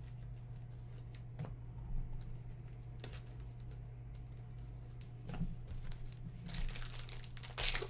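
Scattered soft clicks and rustles of trading cards and packaging being handled, busier near the end, over a steady low hum.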